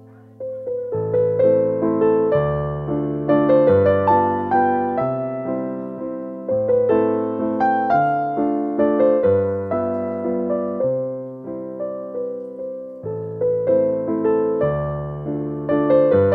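Background piano music: a gentle melody of struck notes over slowly changing chords, starting about half a second in.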